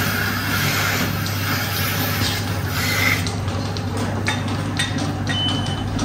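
Milking parlour machinery running: a steady hum with hissing and scattered clicks.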